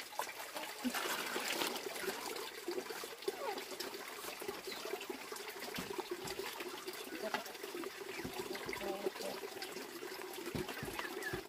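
Water trickling and splashing, with scattered small knocks.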